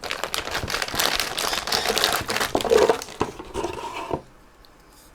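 Packaging crinkling and rustling as a microphone is unwrapped and lifted out of its box, a dense irregular crackle that stops about four seconds in, followed by a few faint clicks.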